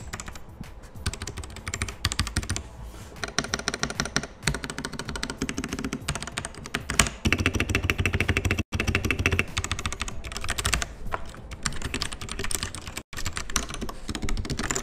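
Royal Kludge RK71 mechanical keyboard with Gateron Red linear switches being typed on continuously: a fast, unbroken run of keystroke clacks.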